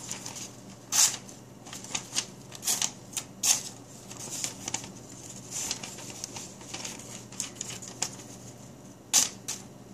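A folding pocketknife blade being drawn through a sheet of thin printed paper in repeated strokes: irregular crisp rustling and tearing crackles, the loudest about a second in, at three and a half seconds and just after nine seconds. The blade is no longer factory sharp and rips the paper raggedly instead of slicing it cleanly; the owner says it needs sharpening and suspects burrs on the edge.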